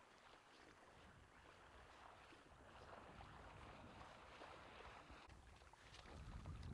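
Faint splashing and sloshing of pond water as retriever dogs swim out to fetch ducks, with wind rumbling on the microphone near the end.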